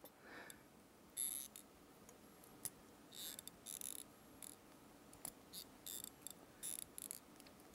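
Faint clicks and short scraping snips of a hand wire stripper gripping and pulling the insulation off thin hookup wires, a few separate strokes.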